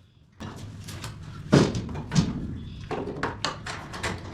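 An irregular run of sharp knocks and clunks over a low rumble, starting about half a second in, the loudest about a second and a half in.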